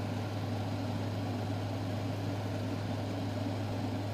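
A steady low hum over a faint even hiss, with no distinct events.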